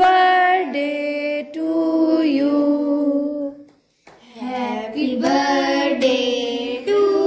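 Children and a woman singing a birthday song together in long held notes; the singing breaks off for a moment about four seconds in, then carries on.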